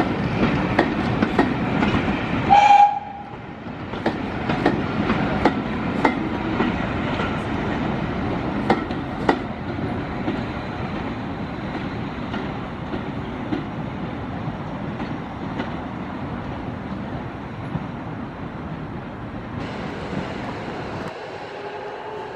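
A train running past on jointed track, its wheels clicking over the rail joints. A short, loud warning blast sounds about three seconds in, then the running sound slowly fades.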